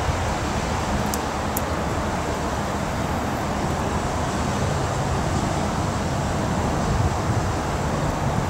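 Steady low engine rumble with a wash of outdoor noise, unchanging throughout.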